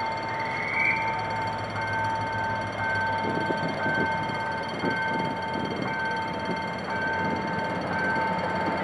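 Level crossing warning signal sounding: a steady electronic tone with a higher tone pulsing about once a second. From about three seconds in, the rumble and knocking of an approaching GM GT22CW-2 diesel locomotive and its train join in.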